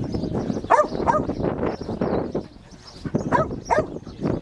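Kelpie barking while working sheep: two pairs of short barks, the first about a second in and the second about three and a half seconds in.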